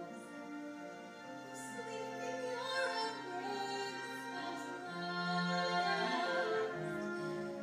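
Live stage performance of a slow musical-theatre duet: sung voice with held notes over orchestral accompaniment.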